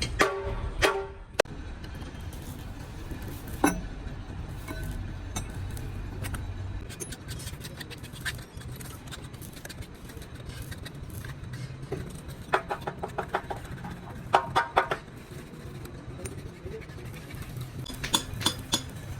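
A steady low rumble with a few sharp knocks, then clusters of quick, ringing metallic taps several times a second.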